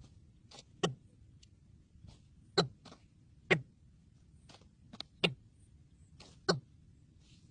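A series of short, sharp clicks or knocks at irregular spacing, roughly one a second, some coming in quick pairs.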